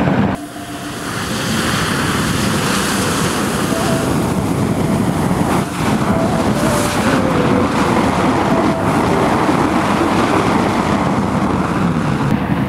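A mass of sparklers burning together inside a hollowed-out watermelon, sending up a jet of flame and sparks with a loud, steady rushing hiss. The sound dips briefly about half a second in and again about six seconds in.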